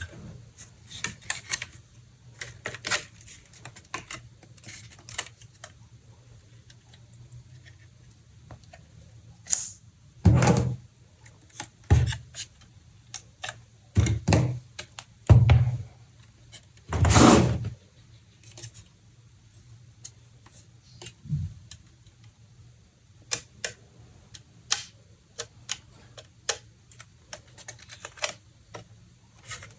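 Hands handling a graphics card and its packaging: scattered light clicks and taps, with a handful of louder thumps near the middle.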